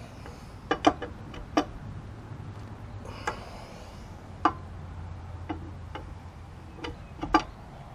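Four-way lug wrench clinking on a trailer wheel's lug nuts as they are tightened: short, sharp metallic clicks at irregular intervals, a few in quick pairs, over a steady low hum.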